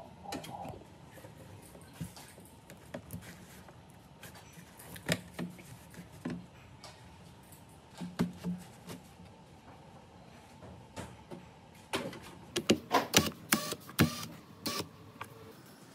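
Scattered clicks and knocks of hard parts being handled, with a quick run of sharp clicks about twelve seconds in.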